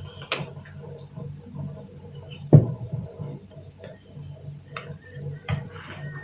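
Scattered light clicks and taps of small plastic ironing beads being handled on a tabletop, with one louder knock about two and a half seconds in, over a low steady hum.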